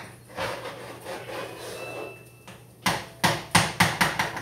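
A cooking utensil scraping and stirring in a pan on the stove, then about six quick knocks of the utensil against the pan, roughly three a second.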